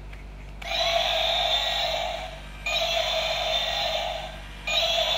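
Battery-powered toy Parasaurolophus dinosaur, switched on with its eye lit, playing an electronic sound effect through its small speaker. The same sound repeats about every two seconds, three times, after a short quiet start.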